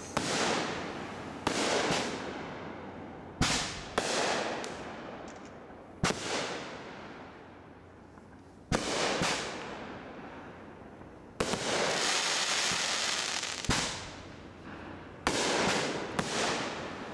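Aerial firework shells bursting overhead one after another: about eight sharp bangs a second or two apart, each trailing off in a fading crackle. A little past the middle, a steady crackling hiss lasts about two seconds.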